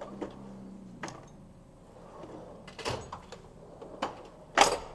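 Steel tool chest drawers rolling on their metal slides and clunking against their stops: several knocks and rattles, the loudest a heavy clunk near the end.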